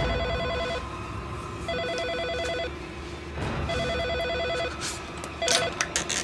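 Antique-style rotary telephone ringing with an incoming call: a rapid trilling ring in about one-second bursts, separated by gaps of about a second. The fourth ring is cut short and a clatter follows near the end as the handset is lifted.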